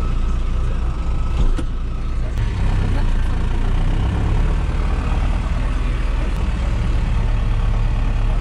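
New Holland tractor's diesel engine running steadily under way, its low hum filling the background. A single knock comes about a second and a half in.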